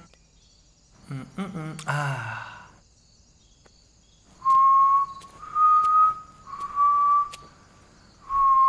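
A person whistling a slow tune in long, clear held notes, three notes about a second apart, each pitched slightly differently. It is preceded by a brief vocal sound a second or two in.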